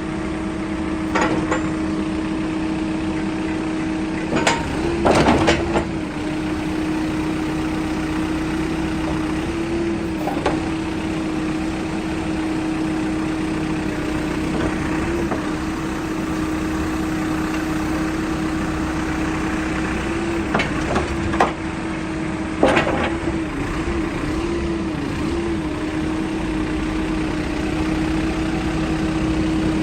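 Case 695SR backhoe loader's diesel engine running steadily, with a few sharp knocks, the loudest cluster about five seconds in and another near 23 seconds, where the engine note wavers briefly.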